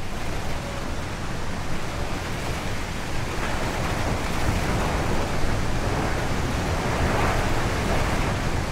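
Rushing wind sound effect: a steady noise that swells a little in gusts as it goes.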